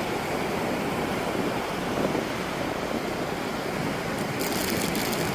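Steady wash of ocean surf mixed with wind on the microphone, with a brief high rustle near the end.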